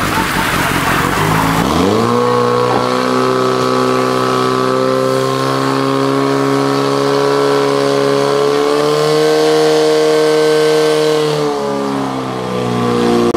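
Portable fire pump's engine revving up about two seconds in and then held at high speed, pushing water through the hoses to the nozzles; its pitch sags and shifts near the end.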